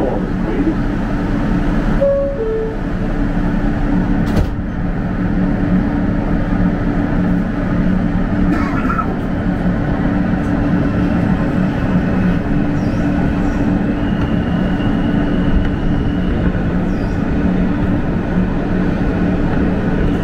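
Inside an R160 subway car: the door chime sounds two short descending notes about two seconds in, and the doors shut with a sharp knock a couple of seconds later. The train then pulls out of the station, its running rumble steady, with a thin high whine joining about two-thirds of the way through.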